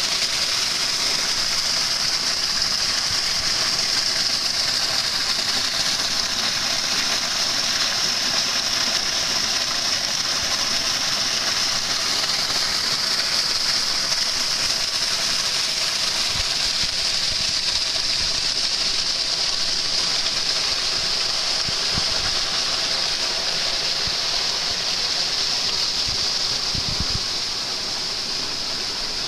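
A shallow stream of water flowing over and splashing against stones, a steady rushing hiss.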